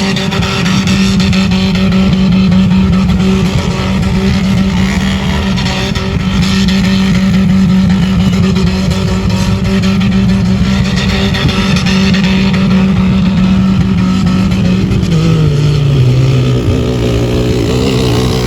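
Four-wheel-drive SUV engine held at high revs while driving on desert sand, with tyre and wind noise. Its note drops in two steps about 15 seconds in as the revs fall.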